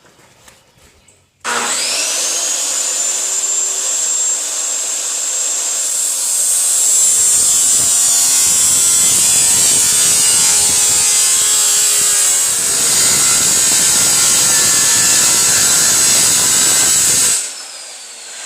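Electric power tool cutting sheet metal: its motor starts about a second and a half in with a rising high whine that settles to a steady pitch, then the cut into the metal adds a loud grinding noise from about seven seconds, with a short easing partway through. The tool shuts off near the end and its whine falls away as it spins down.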